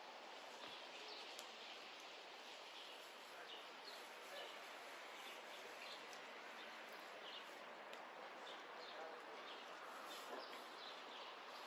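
Faint outdoor ambience with small birds chirping now and then.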